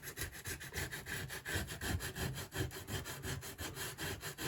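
Sandpaper rubbed by hand over half-set filler on a Pro Boat Veles 29 RC boat hull, in quick, even back-and-forth strokes; the filler is at the just-past-wet stage where it shapes easily.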